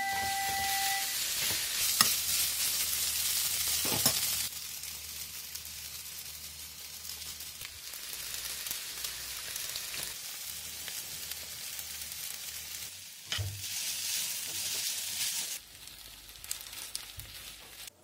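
Spaghetti, broccoli and chicken sizzling in a hot nonstick pan as they are tossed with metal tongs, with sharp clicks of the tongs on the pan about two and four seconds in. The sizzle is loudest for the first four seconds, then settles lower, with one more click near the middle and a further drop near the end.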